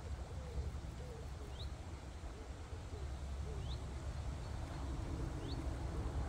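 Birds calling: a short, high rising chirp repeated about every two seconds, with a lower wavering call in the first half. A steady low rumble runs underneath.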